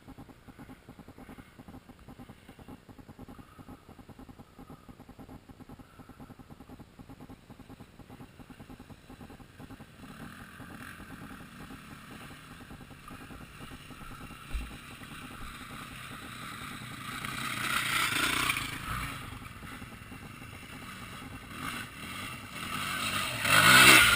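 Dirt bike engines running steadily, then growing louder as the bikes ride through a creek, with two loud rushing surges of engine and splashing water, the louder one near the end.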